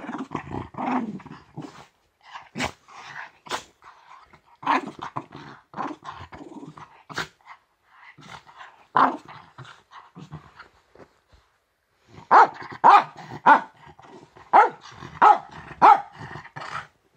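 West Highland terrier growling on and off, a grumpy warning at being woken, then a quick run of about eight short, loud barks near the end.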